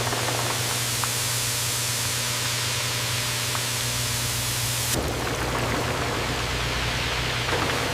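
Steady hiss of a food-processing line over a constant low machine hum, with a few faint clicks; the sound changes abruptly about five seconds in.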